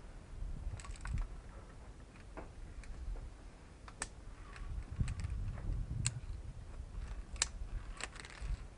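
Irregular sharp metallic clicks and scrapes of climbing gear and boots on rock during a via ferrata descent, over a low rumble.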